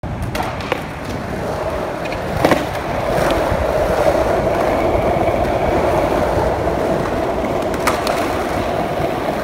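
Skateboard wheels rolling steadily over rough concrete, with a few sharp clacks: a loud one about two and a half seconds in and another near the end.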